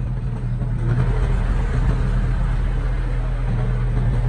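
Diesel engine of heavy earthmoving equipment running steadily, its low hum getting a little louder about a second in.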